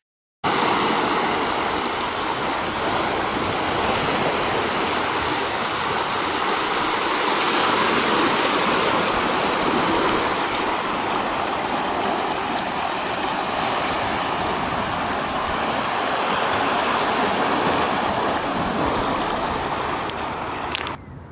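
Sea waves washing over and lapping against the rocks of a shoreline, a steady rushing surf that cuts off suddenly near the end.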